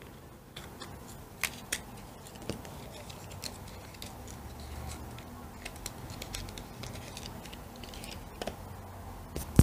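Small cardboard mascara box being opened and handled by hand: scattered light clicks and soft rustles of the packaging, with a sharper click near the end.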